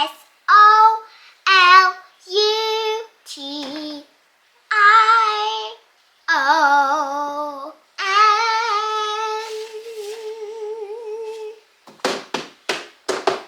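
A girl's voice singing the letters of 'solution' one at a time in a sing-song, each letter a separate note, the last held long. Near the end come several short sharp sounds.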